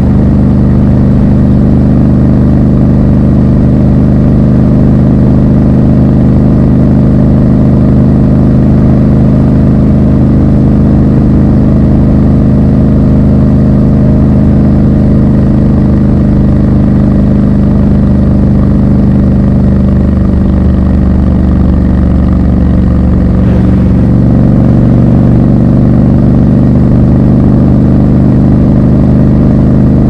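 Triumph Scrambler 1200 XC's parallel-twin engine running steadily under way, loud and close. Its note shifts a little about twenty seconds in.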